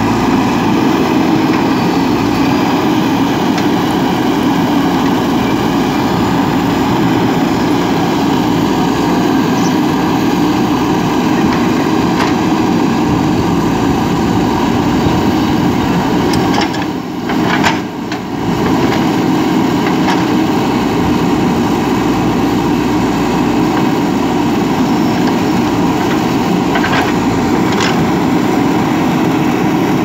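JCB 3DX backhoe loader's diesel engine running steadily while the backhoe arm digs and dumps soil. The engine note dips briefly a little past halfway.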